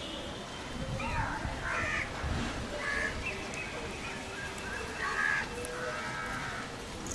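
Crows cawing in the background, about six calls over several seconds.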